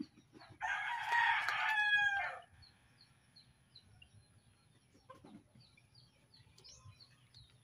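A rooster crowing once: one loud call of about two seconds that drops in pitch at its end, with faint high chirps repeating in the background.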